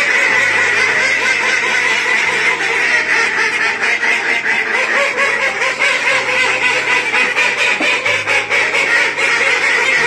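A flock of domestic ducks quacking continuously, many calls overlapping at once with no pause.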